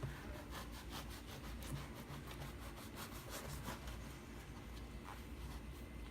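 Kitchen knife sawing through bread: a quiet run of repeated back-and-forth scraping strokes.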